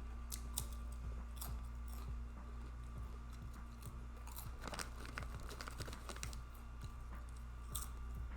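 A person chewing a mouthful of chipotle chicken cheesesteak sandwich, with irregular wet mouth clicks and smacking that bunch up about halfway through, over a steady low hum.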